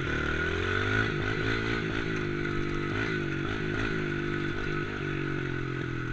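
Yamaha TT-R110 dirt bike's small single-cylinder four-stroke engine pulling away and accelerating in the low gears. Its pitch climbs at the start, then rises and dips several times as the throttle and gears change.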